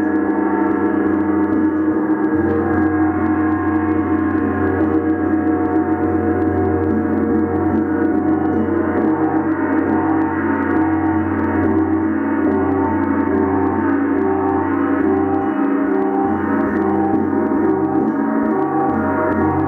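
Large planetary Jupiter gong played continuously with a mallet, sustaining a dense, steady wash of many ringing tones at an even loudness.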